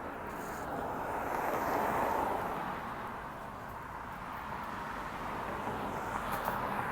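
Road traffic passing on a street: the noise of a car swells to a peak about two seconds in and fades, then rises again near the end as more traffic approaches.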